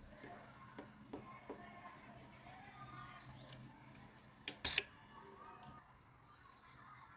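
Light ticks of hard parts being handled, then a sharp double click about four and a half seconds in, over a faint steady hum.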